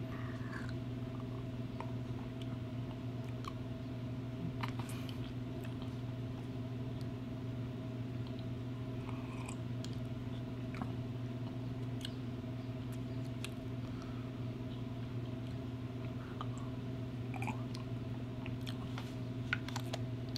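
Steady low room hum under faint scattered clicks and mouth sounds of a man sipping a sports drink from a plastic bottle, swallowing and tasting it.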